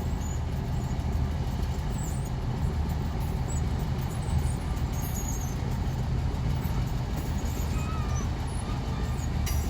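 Diesel locomotive engine running steadily, a low rumble, as it pushes two cabooses along the track.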